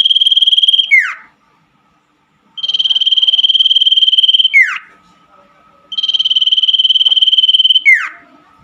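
Common iora (cipoh) song: a long trilled whistle held at one pitch for about two seconds, ending in a quick falling slur, repeated about every three seconds. A faint steady high tone runs underneath.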